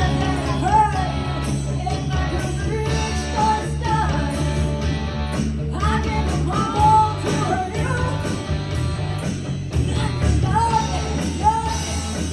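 A rock-and-roll band playing live, with a singer's voice over a steady bass line.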